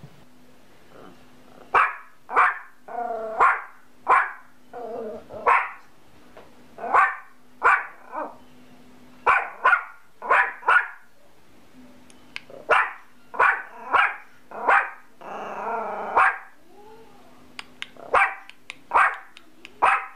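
Yorkshire Terrier barking repeatedly in short, sharp barks, with a few longer, drawn-out barks among them.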